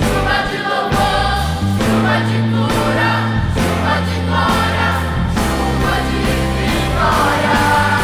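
Choir of adolescents singing a gospel song with instrumental accompaniment, the voices holding long notes over sustained bass notes that step in pitch.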